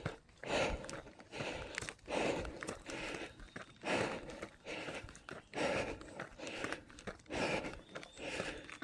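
Hard, rhythmic breathing of a person running uphill, about one breath a second, with footfalls on the trail.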